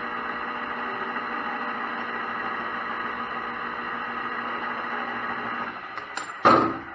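Metal lathe running steadily with a hum and a few fixed tones while turning a copper workpiece; it quietens near the end, then there is one sharp metallic clank.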